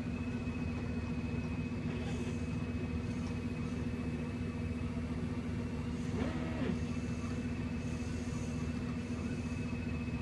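Steady low hum with a thin high tone over it, and about six seconds in a brief whine that rises and falls in pitch: the geared DC motor of a 3D-printed robot's neck, driven through an L298N motor driver, turning the head.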